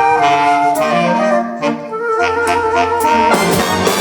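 Swing big band playing an instrumental fill between vocal lines: the saxophone section and brass play moving chords over bass and drums.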